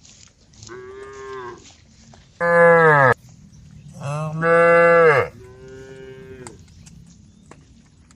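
Cows mooing: four moos in a row, the first and last fainter and the two in the middle loud. The calls differ in pitch, and the loud ones sink in pitch as they end.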